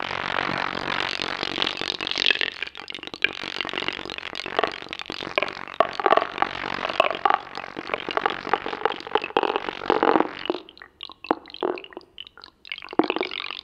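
Experimental ensemble music with live electronics: a dense, grainy texture of rapid clicks, crackles and scraping noise. About ten seconds in it breaks up into sparse clicks and short noise bursts.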